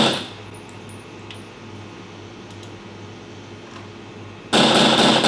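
A soloed sound-effect clip playing back: a loud burst of dense noise about a second and a half long, fading out at the start, then a low hum with a few faint clicks, then the same burst again about four and a half seconds in.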